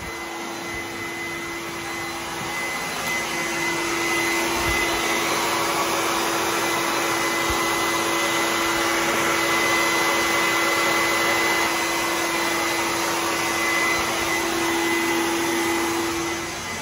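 Wet/dry shop vacuum running steadily with a high whine, picking up water spilled while draining a water heater; it gets louder a few seconds in.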